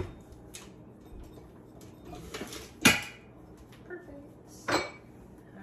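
Kitchen items being handled on a counter: a few sharp clacks and clatters of dishes and utensils, the loudest about three seconds in.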